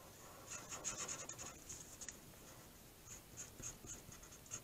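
Faint scratching and rubbing of a felt-tip marker colouring round spots on folded paper: a run of quick strokes from about half a second to two seconds in, then a few short separate dabs.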